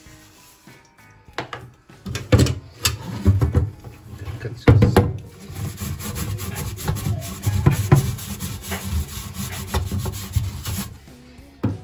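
Metallic mesh scrubbing pad scouring a perforated metal turkey-fryer basket with cleaning paste, rubbing back and forth over baked-on grease. The strokes start about two seconds in and stop shortly before the end.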